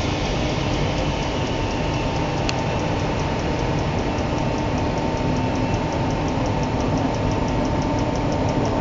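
Heavy-duty aluminium alloy rod breakdown (wire drawing) machine running steadily as its take-up reel winds wire: a continuous mechanical drone with a constant whine. From about three seconds in, a fast, even light ticking joins it.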